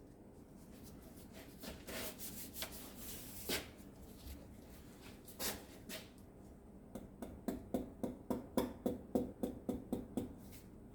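Hand tools and parts handled on a 1JZ engine during removal of a conrod and piston: scraping and knocks at first, then a quick, even run of metal clicks, about five a second for some three seconds.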